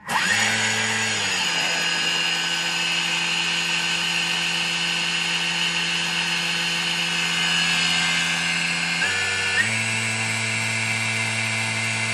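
Vorwerk Thermomix motor running at high speed (about 8.5) to mill oats into flour: a loud, steady whine that starts suddenly. Its pitch drops slightly about a second in and rises back about nine seconds in.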